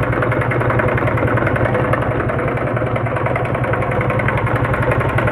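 Honda CD 70's single-cylinder four-stroke engine idling with a loud, rough mechanical clatter, sounding like an old tractor. The mechanic sets out to cure the noise by replacing the timing chain.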